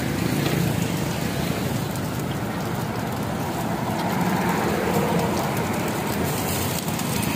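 Steady street traffic noise: the engine hum of passing vehicles.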